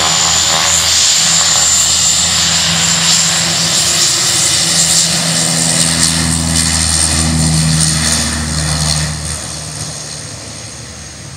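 ATR twin-turboprop airliner rolling on the runway: a steady propeller drone under a high turbine whine, fading from about eight seconds in as the aircraft moves away.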